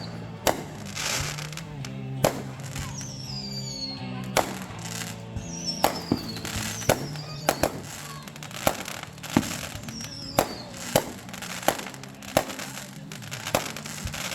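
Aerial fireworks bursting, with sharp bangs about once a second and several short whistles falling in pitch. A song plays steadily underneath.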